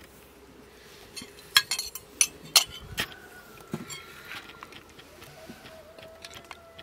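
Cookware and utensils clinking: a quick run of sharp clinks and knocks between about one and three seconds in, then a few lighter ones.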